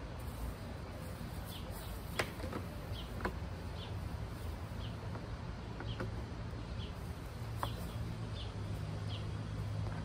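A small bird chirping repeatedly, short high chirps about once a second, over a steady low hum that grows a little louder near the end. A few sharp clicks come about two and three seconds in, from cable plugs being handled.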